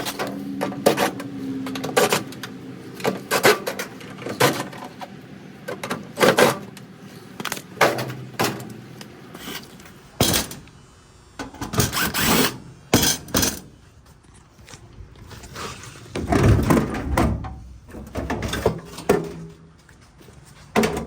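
Irregular knocks, clunks and rattles of hands and tools working on a clothes dryer's metal cabinet and parts, with a denser rush of noise at about sixteen seconds.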